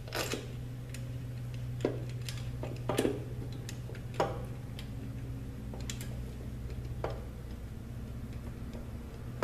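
Scattered light metallic clicks and taps, about five at uneven intervals, as a Subaru Lineartronic CVT's aluminium valve body is handled and worked into place against the transmission case. A steady low hum runs underneath.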